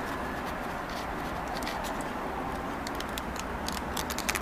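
Scattered light ticks and rustles of hands handling a decorative braid trim being stuck onto a box lid, over a steady background hiss; the ticks come closer together near the end.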